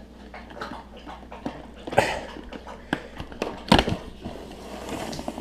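Cardboard box of a keyboard being handled and opened by hand: rustling and scraping with scattered clicks and knocks, the two loudest about two seconds and nearly four seconds in.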